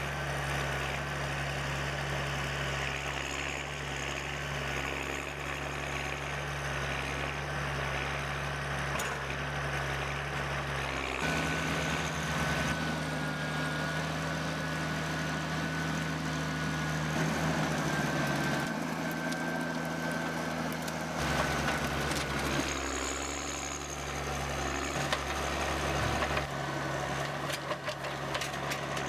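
Heavy machinery engines running steadily, with a high whine over a low hum; the sound changes abruptly several times.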